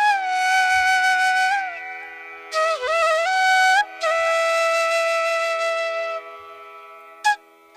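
Background music: a flute plays long held notes that slide between pitches over a steady drone, fading away near the end.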